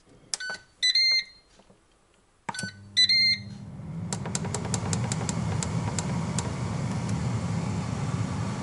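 Ninja dual-zone air fryer control panel beeping as its buttons are pressed, two sets of beeps, then the air fryer starts: a low hum comes in about two and a half seconds in and builds into a steady whoosh of its fan, with a run of light ticks for a couple of seconds as it spins up.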